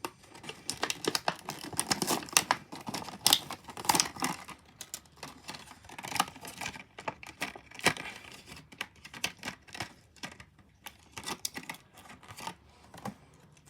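A diecast toy's cardboard and plastic blister package being torn and pulled open by hand, with irregular crackling, crinkling and clicking throughout.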